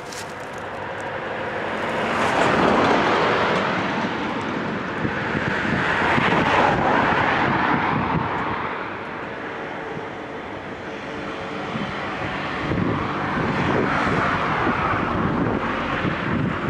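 Road traffic: vehicles passing one after another, the noise swelling and fading away three times.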